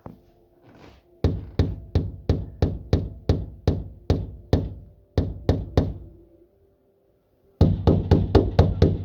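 Rapid repeated knocking on a hard surface: a run of about fifteen knocks at roughly three a second, a pause of a second and a half, then a quicker burst of about nine knocks near the end.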